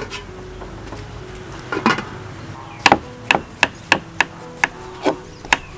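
A hand peeler scraping the skin off a green papaya in quick, sharp strokes, about three a second, through the second half.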